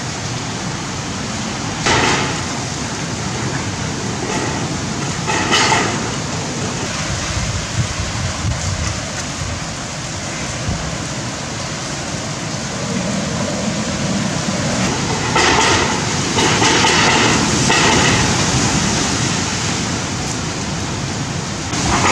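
Heavy rain and wind of Cyclone Amphan making a steady, loud hiss. It swells louder briefly twice early on and again for a couple of seconds past the middle.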